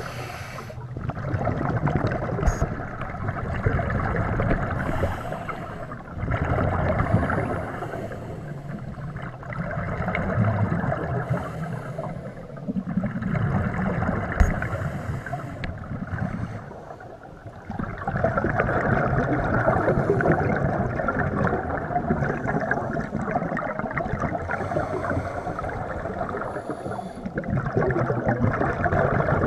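Scuba divers' regulator breathing heard underwater: exhaled air bubbles out in rushing, gurgling surges that swell and fade every few seconds, running on longer near the end.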